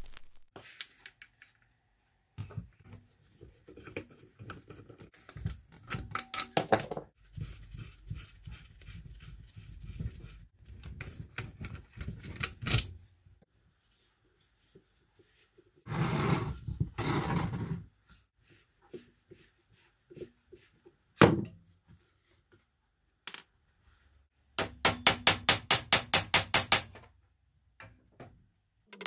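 Hand tools taking apart a rusty steel pressure-gauge case: a screwdriver scraping and turning screws, with metal clunks and knocks. One sharp click comes about two-thirds through, and near the end a fast, even run of clicks lasts a couple of seconds.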